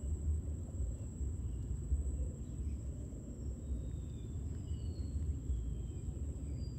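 Outdoor ambience: a low, uneven rumble with a few faint, short high chirps of birds scattered through the second half, over a thin steady high tone.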